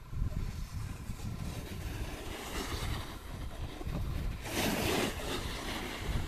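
Wind buffeting the microphone in an uneven low rumble. About four and a half seconds in comes a louder hiss lasting under a second, a snowboard edge scraping across slushy snow.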